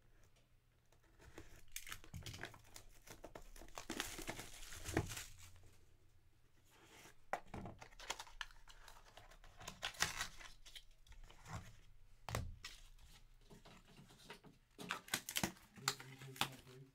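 Plastic shrink wrap being slit and torn off a trading card box, crinkling as it is pulled away, with the cardboard box handled and opened. A quick run of sharp clicks and knocks near the end.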